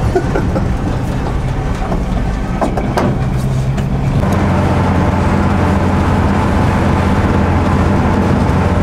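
1959 Volkswagen panel van's engine running at road speed, heard from the cab: a steady drone whose pitch drops to a lower, even note about four seconds in.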